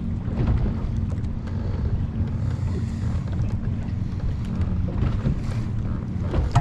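A boat motor running steadily, with wind buffeting the microphone.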